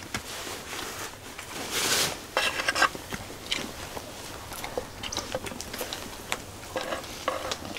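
Scattered light clicks and clatter of tableware with brief rustling, as food is handled and eaten, over a faint steady hiss.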